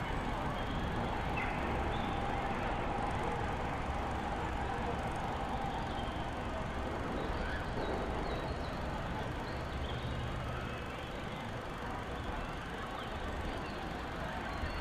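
Steady outdoor background noise: a low rumble under a hiss, with a few faint, brief high chirps or distant voices.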